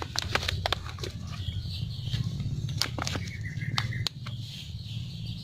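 Goldfish feeding at the pond surface, their mouths making scattered wet pops and smacks as they gulp the food, over a steady low hum.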